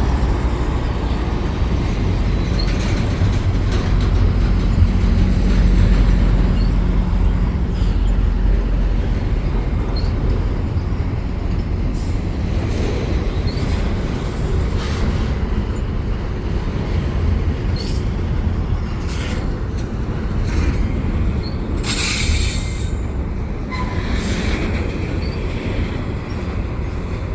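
Freight train rolling past close by on the adjacent track: a steady low rumble of wheels on rail, with short sharp high squeals and hissing bursts scattered through the second half.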